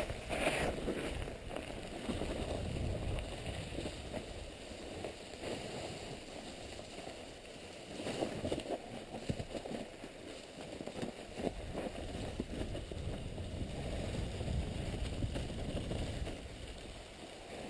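Mountain bike descending a forest trail: knobby tyres rolling and crunching over gravel and thick dry fallen leaves, with frequent knocks and rattles as the bike hits bumps, and a low rumble of wind on the microphone.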